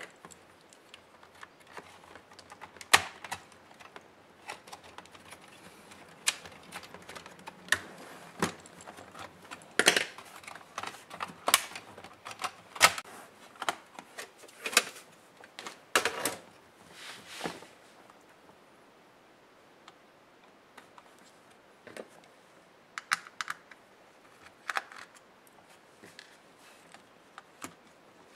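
Irregular sharp clicks and taps of a plastic laptop case and small tools being handled during disassembly. They come thickly through the first half, then thin out to a few scattered clicks.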